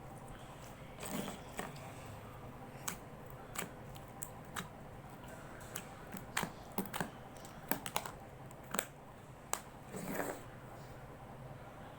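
Slime being handled: irregular small sticky clicks and pops, with a softer squish about a second in and another near the end.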